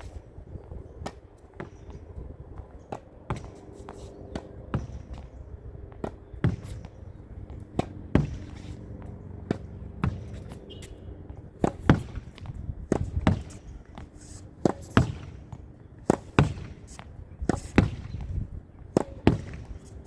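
Tennis ball being hit against a practice wall in a continuous solo rally: sharp pops of the racket strings striking the ball, each followed closely by the thud of the ball off the wall, about one to two hits a second, getting more frequent and louder in the second half.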